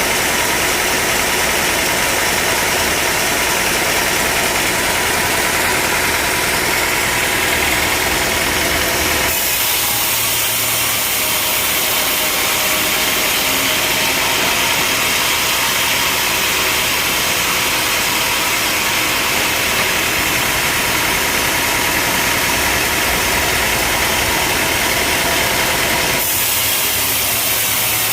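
Engine-driven sawmill running steadily. From about 9 seconds in until shortly before the end, the sound shifts to a brighter hiss with less low rumble.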